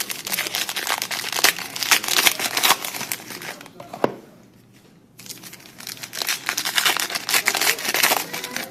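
Plastic trading-card pack wrappers being torn open and crinkled: two spells of crackling, each three to four seconds long, with a short pause and a single click between them.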